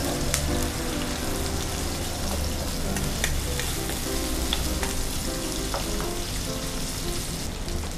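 Sliced onion and garlic sizzling in hot oil in a pan as a wooden spatula stirs them, with a few sharp taps and scrapes of the spatula against the pan.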